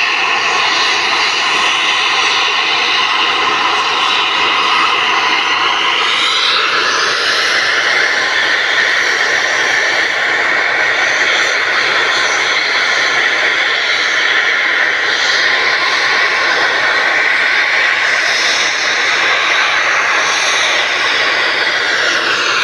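Loud, steady factory machinery noise: a continuous drone with high whining tones that shift in pitch about six seconds in and again near the end.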